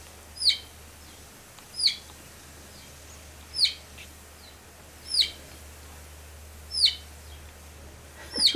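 A high chirping call repeated six times at an even pace, about every second and a half, each chirp sweeping quickly down in pitch.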